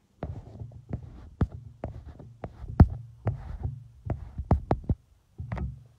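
Handling noise on a hand-held smartphone's microphone: irregular knocks and thumps over a low rumble, a dozen or more strokes.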